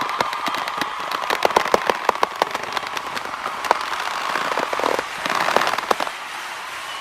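Firecracker-like crackling: a rapid, irregular run of sharp pops over a steady hiss, thinning out after about six seconds.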